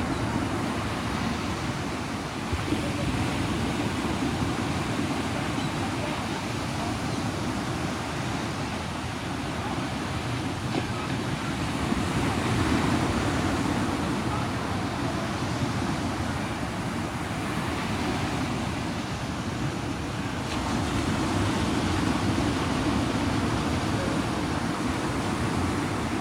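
Ocean surf rushing on the beach, a steady noise that swells louder a few times.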